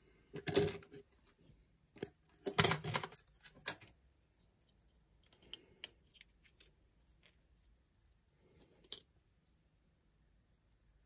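Hand-handling noise close to the microphone: two dense clusters of clicks and rattles in the first four seconds, then scattered lighter clicks and a sharp tick near the end.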